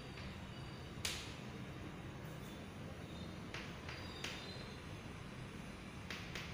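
Chalk tapping and scratching on a blackboard in short, separate strokes while small figures are drawn. The sharpest tap comes about a second in, with more clusters of strokes in the middle and near the end, over a low steady hum.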